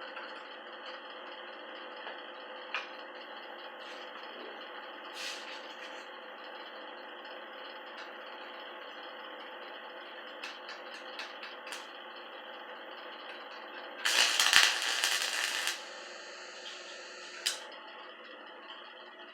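Refrigerator compressor running with a steady hum, with a few small clicks. About two-thirds of the way through, a loud hiss lasts for about two seconds.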